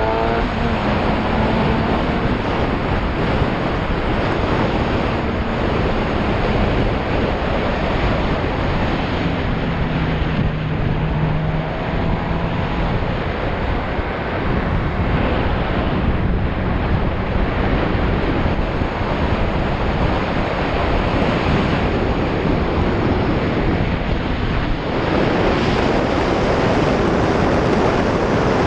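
Heavy wind buffeting the microphone of a GoPro Hero4 Session: a loud, continuous rushing roar, with a faint low hum underneath at times. The wind noise grows stronger about four-fifths of the way through.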